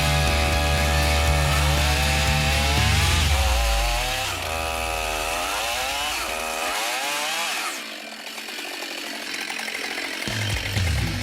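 Chainsaw running as it cuts wood, its engine pitch rising and falling as it is revved; the engine note slides down about four seconds in, and it grows quieter from about eight seconds in, before a low steady sound returns near the end.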